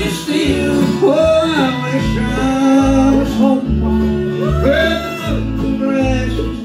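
Bluegrass band playing live: acoustic guitar, banjo, fiddle and upright bass, with a sliding melody line over bass notes that mark the beat.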